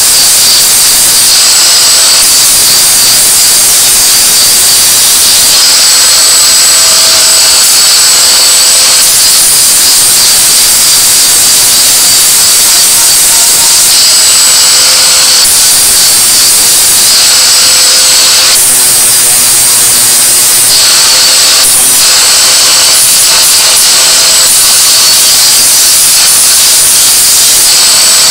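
INGCO angle grinder running loud under load, grinding a workpiece: a steady high whine with harsh grinding hiss that swells and eases several times as the disc's contact changes.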